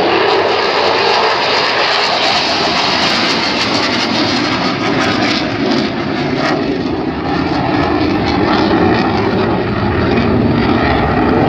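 F-16 fighter jet flying past, its single jet engine a loud, steady rushing noise that turns deeper in the second half.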